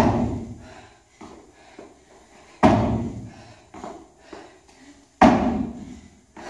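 Box jumps on a wooden plyo box: three heavy thuds of feet landing and jumping, about two and a half seconds apart, with lighter footfalls between them.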